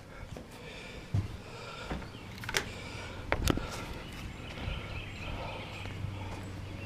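A few sharp knocks and clunks, four of them in the first half or so, over steady outdoor background noise with birds chirping.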